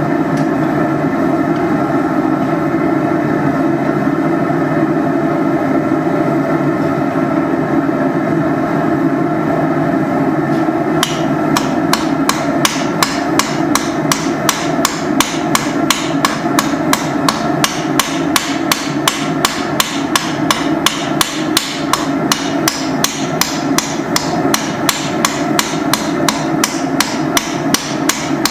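Hammer blows on hot iron, a dug-up railroad spike being forged on an anvil, falling in an even rhythm of about three strikes a second from about eleven seconds in. A loud steady roar runs underneath throughout.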